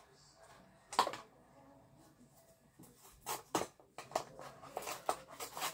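Plastic blister pack and card of a toy car package being handled and opened: a single sharp click about a second in, then scattered clicks and crackles over the last few seconds.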